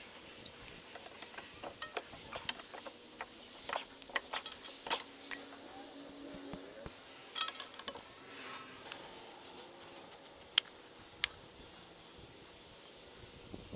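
Sharp metallic clicks and clinks in scattered clusters as tools and brake parts knock together while a car's rear brake caliper is handled and refitted, with a quick run of evenly spaced clicks about ten seconds in.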